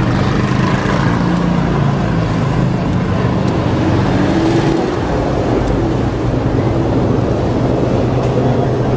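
Motor vehicle engine noise with traffic, running steadily as a loud low hum.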